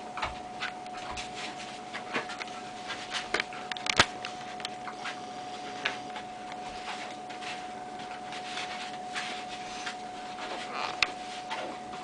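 Dog playing with a plush toy on carpet, rolling, mouthing and chewing it: irregular soft rustles and clicks, with one sharper click about four seconds in.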